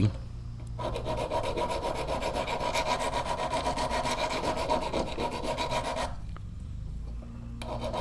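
A new hand file is worked back and forth across a steel broadhead blade in quick, raspy metal-on-metal strokes, establishing a fresh edge on a blade dulled by being shot into dirt. The filing starts about a second in, stops for about a second and a half near the end, then resumes.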